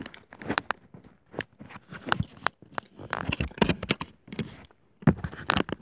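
Irregular clicks, taps and short rustles close to the microphone, several a second, with a brief pause near the end.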